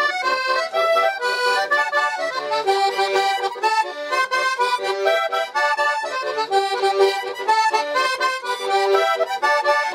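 Accordion playing a quick melody of short, separate notes.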